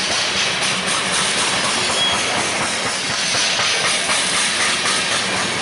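Freight train of covered hopper cars rolling past, a steady continuous rush of wheel and rail noise.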